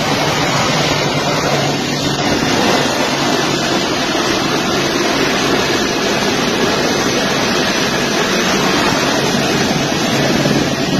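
Loud, steady roar of a C-17 transport's turbofan jet engines mixed with rushing air, recorded on a phone from the landing-gear fairing just below the wing during the takeoff run.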